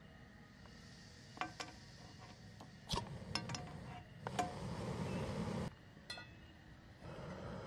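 A handheld lighter clicking several times, then a gas-canister backpacking stove catching about three seconds in and burning with a steady hiss. Near six seconds the hiss drops out as the valve is turned down, a metal clink sounds as the frying pan is set on the burner, and the stove hisses again near the end.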